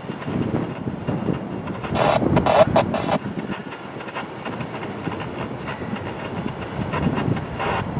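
Railroad train rolling along the tracks: a steady rumbling rush with wind buffeting the microphone. A louder, crackly burst comes about two seconds in and lasts about a second.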